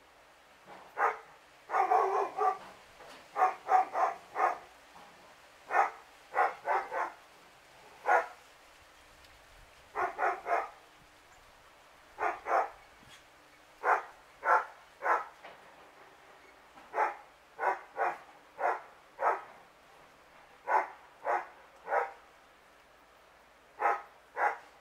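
A dog barking over and over, in short runs of one to four barks with pauses of a second or two between runs.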